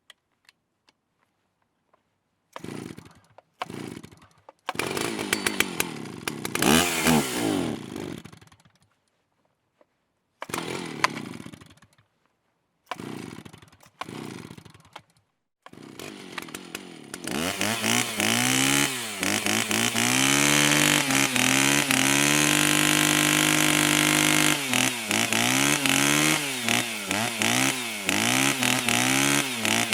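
Chainsaw engine heard first in several short bursts with silences between them, one of them rising and falling in pitch. It then keeps running, revved up and down, with a few seconds held at one steady pitch in the middle of the run.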